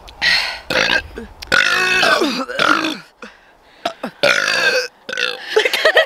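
A woman burping loudly several times in a row, one burp drawn out for well over a second, from the gas of gulping carbonated Dr Pepper.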